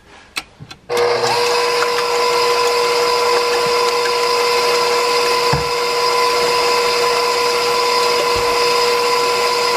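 Electric mixer beating egg whites for meringue, switched on about a second in and then running at one steady speed with an even pitch.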